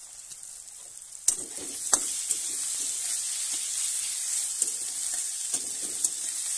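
Sliced onions, green chillies and garlic sizzling in hot oil in a metal kadai while a spatula stirs them, scraping and tapping against the pan. The sizzle gets much louder about a second in, with a sharp tap of the spatula on the metal.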